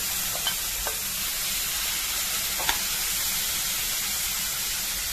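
Yogurt-marinated boneless chicken pieces sizzling steadily in hot butter and oil in a kadhai over a high flame, with a few light taps of a utensil against the pan.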